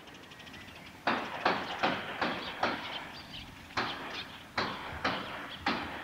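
A run of about ten sharp clacks or knocks at uneven intervals, starting about a second in, each with a short ringing tail.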